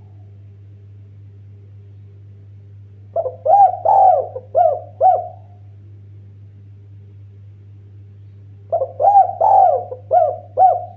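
Spotted dove (tekukur) cooing: two phrases of about five coos each, a few seconds apart, over a steady low hum.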